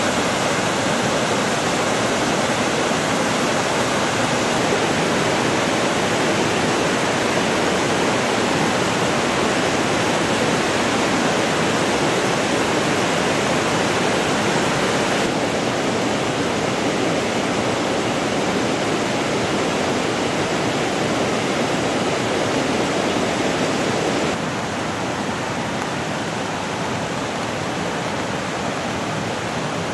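Rushing water of a rocky mountain river running over rapids: a steady, even rush that changes slightly in tone about halfway through and gets a little quieter in the last few seconds.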